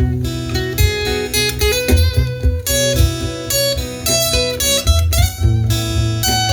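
Instrumental music: an acoustic guitar playing over a steady bass line, with a melody of wavering notes on top.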